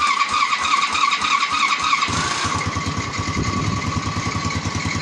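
Newly installed engine of a 110cc quad, turned over by its electric starter with a whining crank. It catches about two seconds in and settles into a steady idle: the first start of the new engine.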